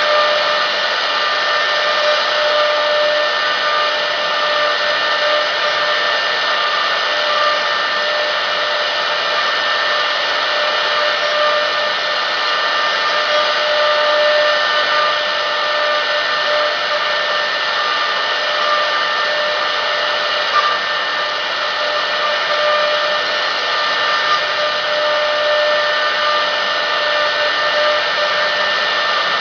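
CNC woodworking router with a rotary axis running: a steady motor whine with a few held tones over a constant rushing noise.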